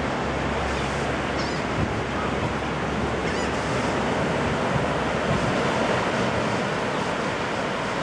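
Small ankle-to-shin surf breaking and washing on a sandy beach, a steady even wash of waves with wind on the microphone. A low steady hum from before fades out about a second and a half in.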